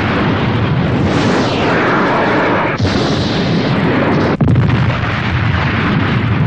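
Cartoon sound effects of jet fighters exploding in mid-air: a continuous loud explosion rumble, with a fresh blast cutting in about three seconds in and another about four and a half seconds in.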